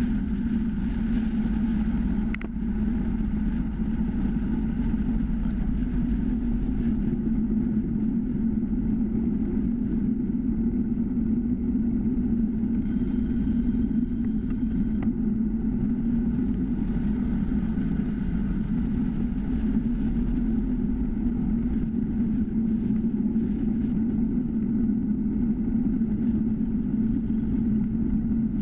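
Steady low rumble of wind and road vibration picked up by a GoPro camera mounted on a time-trial bicycle rolling along an asphalt road, with a brief click a little over two seconds in.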